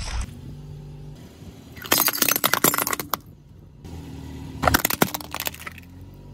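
Car tyre rolling over and crushing things on asphalt: two bursts of crackling and crunching, about two seconds in and again near five seconds, the second a hard plastic toy mask cracking and splitting apart under the wheel.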